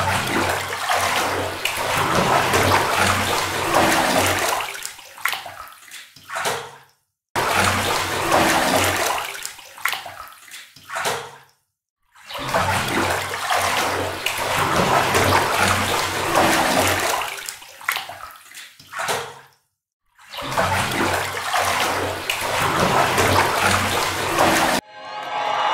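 Rushing, splashing water with a low rhythmic pulse: a boat-on-water sound effect played four times over, each run of about five to seven seconds cut off into silence.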